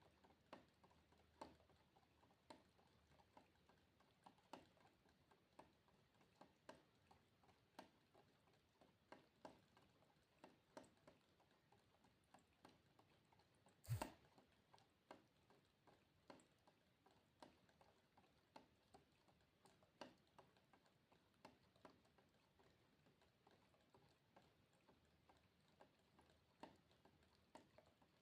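Faint water droplets dripping in an irregular patter, one to two drops a second, with one clearly louder drop about halfway through.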